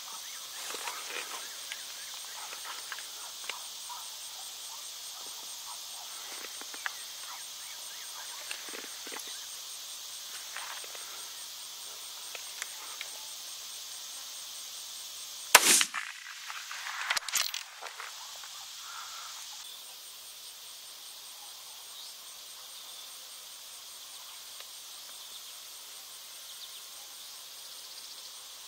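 A single gunshot about halfway through, sharp and far louder than anything else, followed by a couple of seconds of smaller sharp noises. A steady chorus of insects runs underneath.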